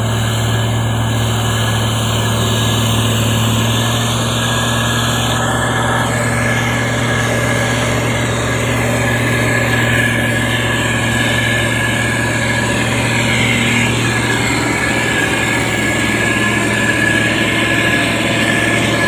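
Diesel engine of a SANY STG190C-8S motor grader running steadily, a constant low drone with no change in pitch or level.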